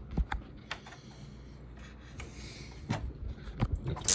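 Technics SL-MC7 CD changer's disc mechanism working through an eject, a series of small clicks with a faint whir between them.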